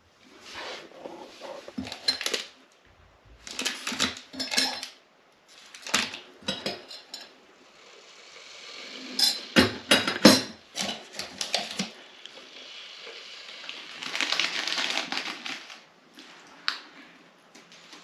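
Mugs, teaspoons and sachets clinking and rustling on a tea tray as a hot drink is made, with a couple of stretches of steady hiss in the second half.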